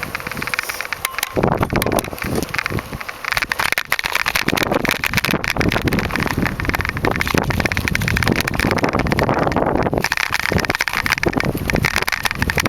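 Mountain bike being ridden over a gravel road: tyres crunching on gravel and the bike rattling over the rough surface, with wind buffeting the microphone. It grows louder about a second in.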